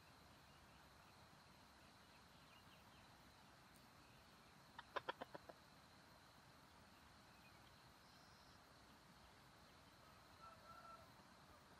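Red junglefowl clucking: a quick burst of about six clucks about five seconds in, then a fainter short call near the end.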